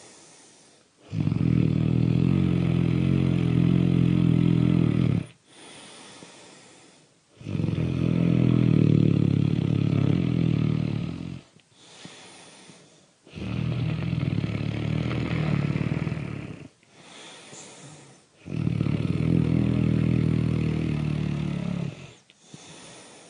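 Loud snoring: four long, loud snores of about four seconds each, with quieter breathing between them.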